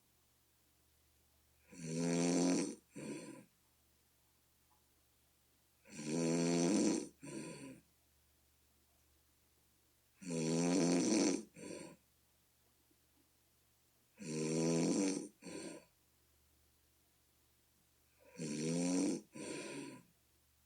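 A person snoring, which the snorer likens to a bullfrog: five regular snores about four seconds apart, each a long pitched rasp of about a second followed at once by a short second snort.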